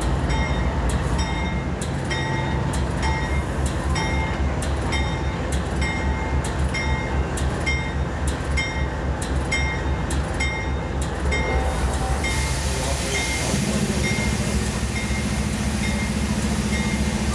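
Diesel locomotive, a GE Dash 9-40CW, rumbling at the platform with its bell ringing steadily, about one and a half strikes a second. About twelve seconds in a loud hiss of air starts, and soon after a steady hum joins the engine note.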